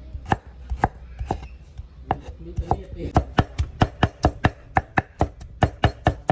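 Cleaver chopping garlic cloves on a thick wooden chopping block, with sharp knocks of the blade striking the wood. A few slow strokes come first, then about three seconds in they quicken to a steady four or five a second.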